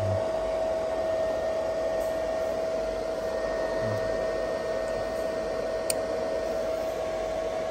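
VEIKONG VFD500 variable frequency drive running, a steady fan-like whir with a steady whine held on one pitch throughout. One sharp click about six seconds in, as the wiring on the control terminal block is handled.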